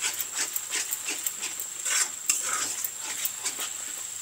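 Metal spatula stirring and scraping thick masala paste around a black iron kadai, about three strokes a second, over a light sizzle of frying. The masala is being fried down until the oil separates.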